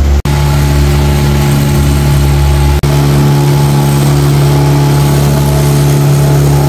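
Motorboat engine running steadily, a loud, even hum with a deep rumble underneath. The sound drops out for an instant twice, shortly after the start and about three seconds in.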